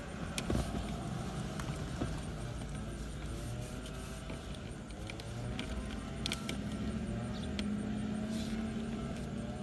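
Scattered light clicks and knocks of plastic trim parts being handled and fitted, over a low steady rumble.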